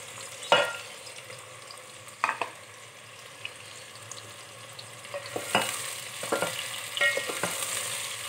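Freshly sliced onions sizzling in hot oil in a metal pot as they start to fry, with several sharp knocks against the pot, some with a short metallic ring. The sizzle grows louder in the second half.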